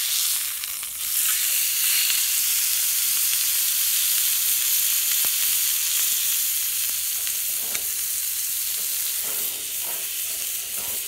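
Beef steak sizzling in oil in a square cast iron skillet over a charcoal grill: a steady hiss. It grows louder about a second in, as the steak is turned over with wooden tongs.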